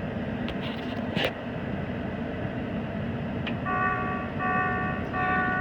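Combine harvester cab with steady machine hum. A bit past halfway an electronic warning alarm starts: repeated multi-tone beeps, each about half a second long, warning of a header sensor fault.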